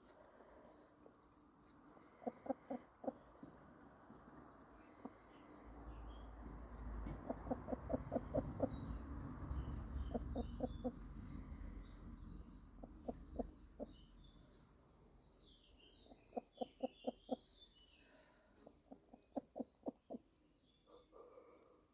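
Hens clucking in short runs of quick clucks, about five a second, repeated every few seconds, with a low rumble underneath for several seconds midway.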